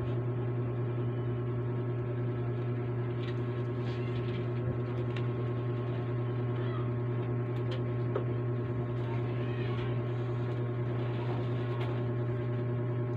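Steady low electrical hum, with a few faint clicks of plastic model parts being handled.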